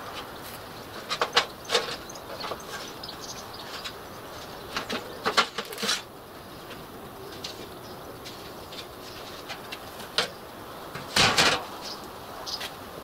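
Thin sheet-metal boiler cladding from a miniature steam locomotive being pulled off the boiler and handled: sharp scrapes and crinkly metallic clatters in several bursts, the longest and loudest near the end.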